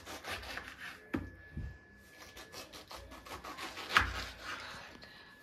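Knife cutting a ripe pineapple into small pieces: quick rasping strokes through the fruit, a couple of knocks, and one sharp knock about four seconds in.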